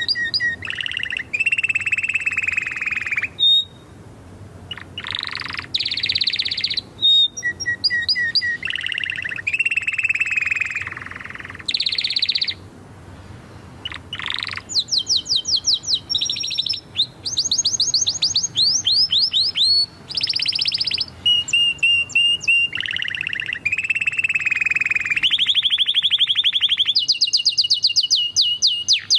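Domestic canary singing a long, unbroken song of rapid trills and rolls. Each phrase is a fast run of one repeated note, some lower and buzzy, others high, quick sweeping chirps, one phrase following another every second or two.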